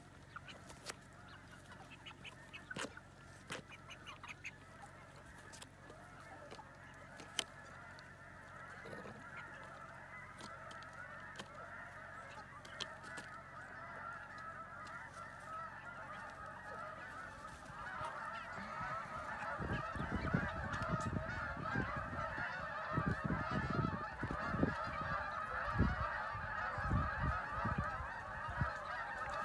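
A large flock of geese flying over, honking continuously in a dense chorus of overlapping calls that grows louder over the second half as the flock comes overhead. Low rumbles hit the microphone over the last ten seconds, and a few sharp clicks sound in the first half.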